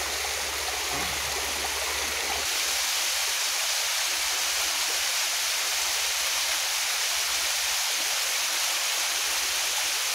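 Waterfall: a steady rush of falling water with no rhythm or breaks. It gets a little louder about two and a half seconds in.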